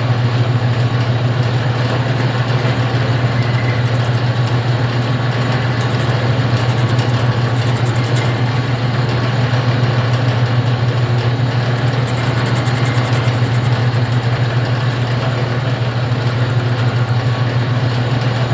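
Vintage belt-driven metal lathe running steadily with a strong low hum while a first cut is taken in a shaft, a faint high whine coming in near the end.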